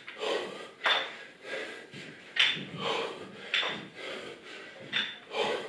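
Forceful breaths out in time with dumbbell ground-to-overhead reps, about one a second, mixed with light knocks and clinks of the metal dumbbells.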